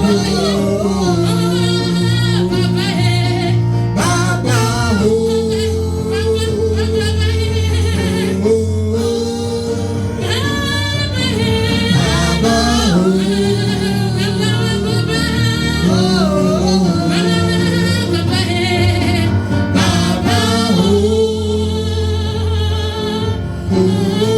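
Gospel worship music: a singing voice holding long wavering notes over sustained instrumental chords and bass.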